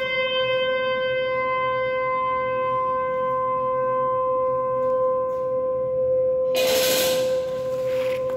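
One long, steady musical note with an even set of overtones, held without any change in pitch, as live accompaniment to a dance. About six and a half seconds in, a brief noisy rush lasting about a second sounds over it.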